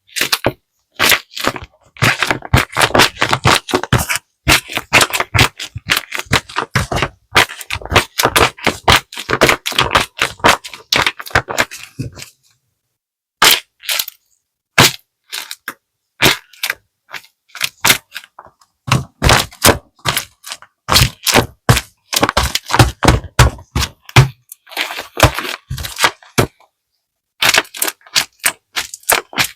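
Handmade paper squishy being squeezed and kneaded in the hands: bursts of dense crinkling and crackling paper, with short pauses between squeezes.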